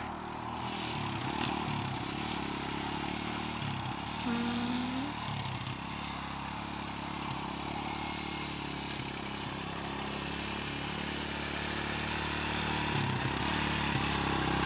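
Small dirt bike engine running as it is ridden around a field, its pitch shifting up and down with the throttle, growing louder near the end as the bike comes closer.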